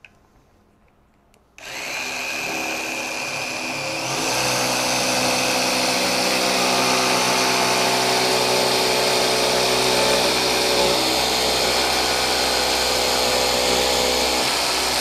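Festool PSC 420 Carvex 18V brushless cordless jigsaw switched on about a second and a half in and running slowly, then ramping up to full speed about four seconds in as the blade enters the plywood: the saw's auto speed mode responding to load. It then cuts steadily through 3/4-inch plywood with the orbit set to zero, the blade going purely up and down.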